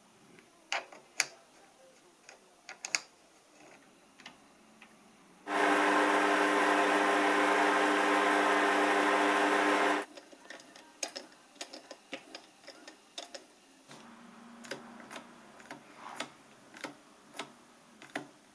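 Light metal clicks and taps from a hex key working on a small Chinese lathe's half-nut mechanism. About five seconds in, the lathe runs with a steady even hum for about four and a half seconds, then stops abruptly. More scattered clicks follow as the half-nut parts are handled.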